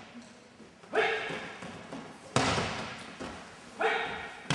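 Aikido throws on tatami mats: a short shout from the attacking partner, then the loud slap of his breakfall on the mats, echoing in a large hall. The pair comes twice.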